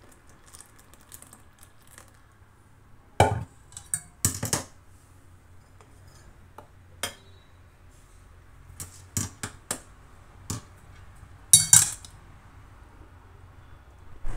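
Steel kitchenware clinking and knocking against a glass bowl as warm milk is strained through a small steel strainer: a handful of sharp, irregular clinks, the loudest about three seconds in and a close pair near the end.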